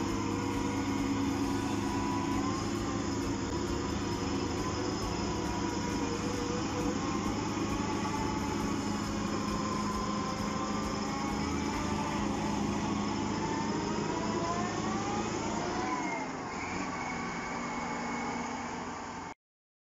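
Heavy diesel engine of a Kirovets K-702 wheeled dozer running under load as it pushes sand, its pitch wavering up and down with a short climb before dropping quieter. The sound cuts off abruptly near the end.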